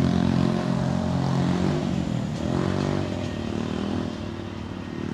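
A motor vehicle engine running, its pitch dipping and then rising again about two to three seconds in.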